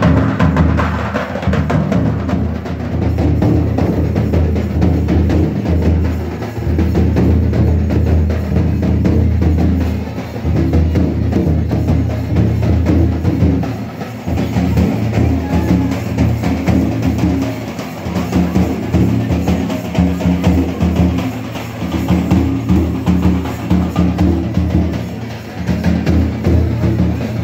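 Adivasi folk music with dense, continuous drumming, the beat for a linked-arm circle dance.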